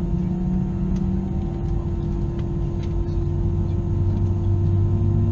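Airbus A320 cabin noise with the engines running: a steady hum over a low rumble, with one lower tone dropping in pitch about three seconds in.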